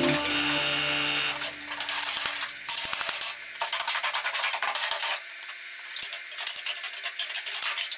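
Plasma cutter cutting through the steel wing of a Mazda MX-5, a crackling hiss with many sharp clicks, broken up towards the end as the cut panel comes free.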